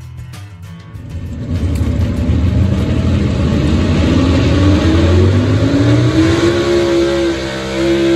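Super stock gas pulling truck's engine running loud at high revs, its pitch climbing steadily about two-thirds of the way in and then holding high as the truck hooked to the pulling sled gets under way. Background music is heard briefly at the very start.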